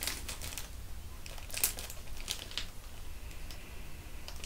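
Clear plastic herb packet crinkling in the hands, in scattered short crackles.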